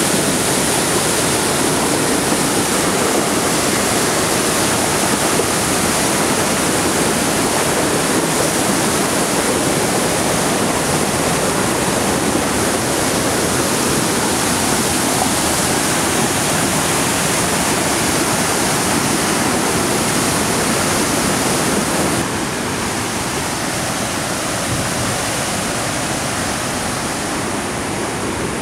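A river in flood, the Gaduares, rushing in white-water cascades over boulders: a loud, steady rush of water. It drops a little in level about three-quarters of the way through.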